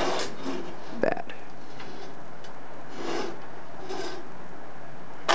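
Short rubbing and scraping noises, about five of them, from parts or the camera being handled, over a steady background hiss.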